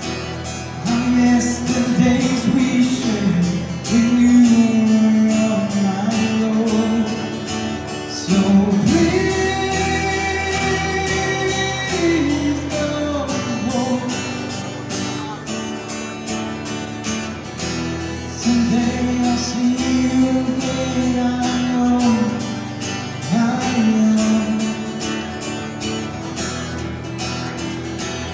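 A man singing long, drawn-out notes over his own strummed acoustic guitar. A higher note is held for about three seconds near the middle.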